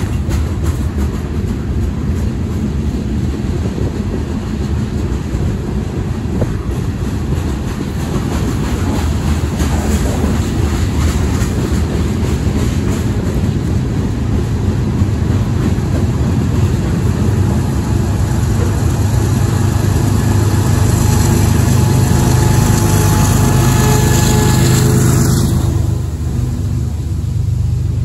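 Freight train cars rolling past: a steady rumble of steel wheels on rail with a fine clicking running through it. It grows louder toward the last few seconds, then eases off a little near the end.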